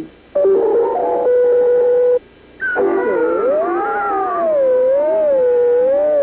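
Cartoon soundtrack effect: a steady held tone for about two seconds, a brief break, then a long howl-like tone that swoops up and wavers slowly up and down.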